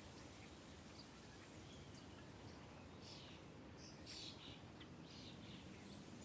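Faint birdsong: a cluster of short, high chirps from small songbirds about halfway through, over a soft, steady outdoor hiss.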